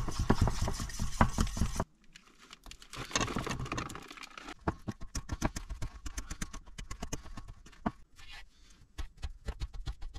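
Pancake batter being prepared by hand: a loud rustling, rattling burst that stops suddenly about two seconds in, then a long run of quick, light clicks, like a utensil knocking around a bowl.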